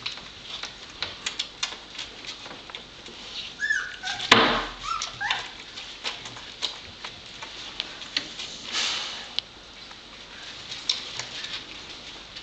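Young puppies giving a few short, squeaky whimpers about four to five seconds in, amid light scratching and rustling on the bedding. A sudden knock about four seconds in is the loudest sound.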